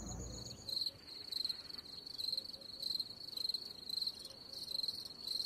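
Crickets chirping: one high, pulsing chirp repeated steadily over and over.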